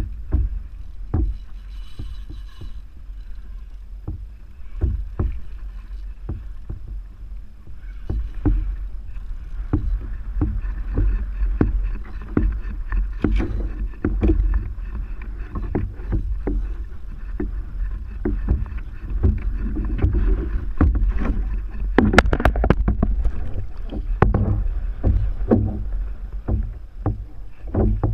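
Sounds on a kayak: water sloshing and slapping against the hull, with frequent irregular knocks and bumps on the hull over a steady low rumble.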